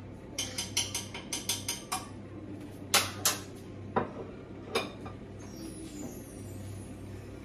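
Dishes and cutlery clinking as food is plated: a quick run of about eight light clinks, then a few sharper clacks about three seconds in.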